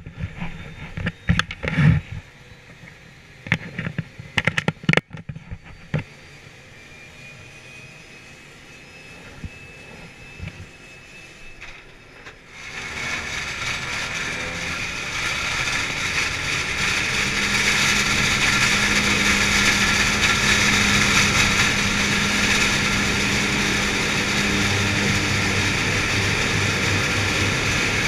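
Aircraft engine and propeller noise heard from inside the cabin of a skydiving plane. A few knocks and clicks come in the first five seconds. About twelve seconds in, the engine noise rises sharply, builds for several seconds and then holds loud and steady.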